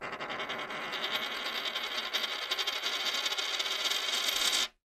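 Logo sound effect of a coin spinning down on a hard surface: a fast metallic rattle that grows slightly louder, then stops suddenly near the end.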